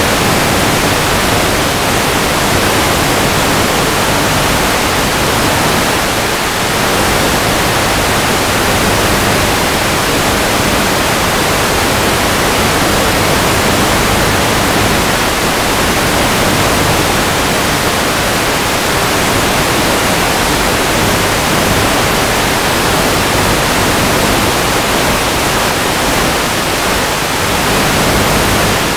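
Loud, steady hiss of radio static on the analog FPV video receiver's audio channel, the noise of a weak video link at long range. A faint low hum lies underneath.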